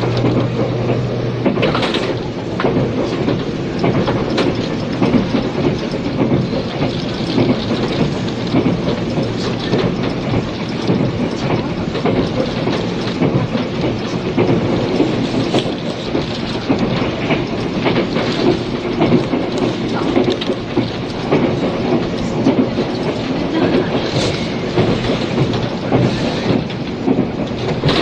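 Interior running sound of a 485-series limited express electric train: steady rolling noise with the clickety-clack of wheels over rail joints, heard through old cassette-tape hiss. A low steady hum stops about a second and a half in.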